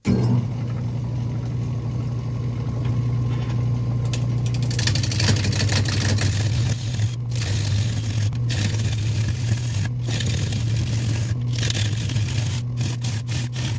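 Wood lathe running with a steady low motor hum while a wet Sissoo (Indian rosewood) bowl blank spins. About five seconds in, a bowl gouge starts cutting the outside of the blank: a continuous shearing hiss of shavings, broken by several brief gaps where the tool lifts off.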